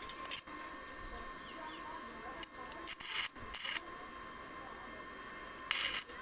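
Stick (arc) welding on square steel tubing: the electrode is struck against the joint several times, giving short bursts of arc crackle and sputter. A steady high hiss runs behind.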